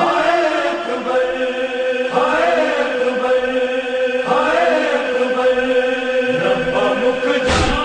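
A voice chanting a religious recitation in long held, slowly gliding notes over a steady held tone. A single sharp thump comes near the end.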